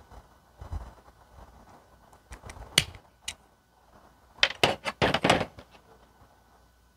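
Grafting pruner fitted with a U-shaped blade cutting through a green branch, with a crunch and a sharp snap about three seconds in. A second later comes a quick cluster of clicks and knocks from the tool being handled.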